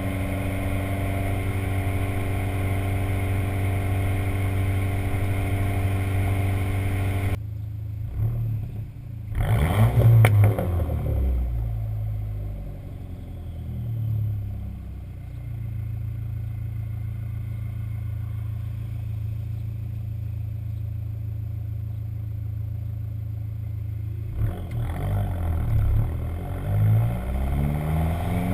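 Dodge SRT-4's turbocharged 2.4-litre four-cylinder, running a Stage 1 tune on the stock exhaust. It holds steady revs, drops off sharply about seven seconds in, gives a quick rev blip, settles to a long steady low drone, then is blipped several times near the end.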